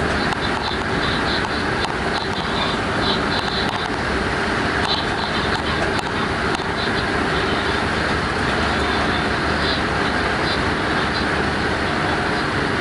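Steady running noise of a DB Class 186 electric locomotive on the move: an even rumble and hiss of wheels rolling on the rails that holds level throughout.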